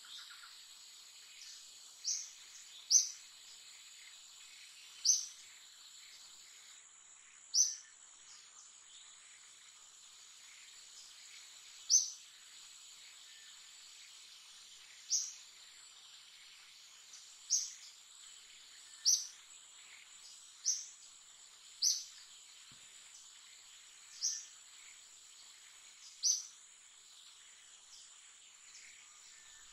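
A bird giving short, high, falling chirps, about a dozen spaced one to three seconds apart, over a steady high-pitched insect drone.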